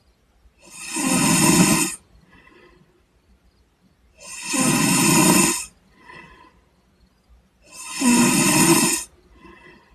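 A person snoring: three loud snores about three and a half seconds apart, each followed by a fainter, shorter breath.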